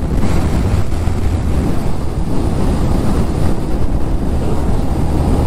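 Honda Monkey 125's single-cylinder engine running steadily at about 40 mph, a low even hum under loud wind buffeting the microphone as the bike heads into a headwind.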